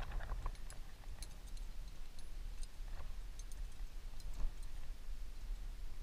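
Wind rumbling on the camera microphone, with scattered light clicks and taps of climbing gear and hands on rock.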